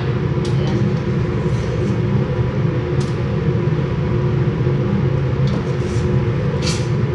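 A steady low mechanical hum, with a few short knocks and scrapes of a ladle stirring in a large stainless steel cooking pot.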